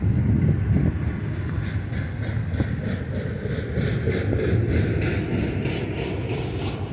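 Double-stack intermodal well cars of a BNSF freight train rolling past: a steady rumble of steel wheels on the rails, with repeated clicks as the wheels pass.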